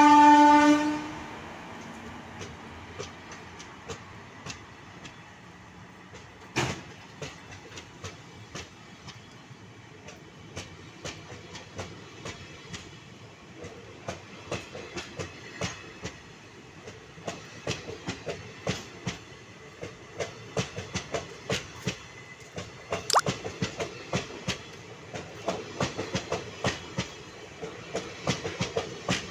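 Express train coaches rolling past, their wheels clicking over rail joints, the clicks coming faster as the train gathers speed. It opens with the end of a loud horn blast from the WAP-4 electric locomotive, which cuts off about a second in.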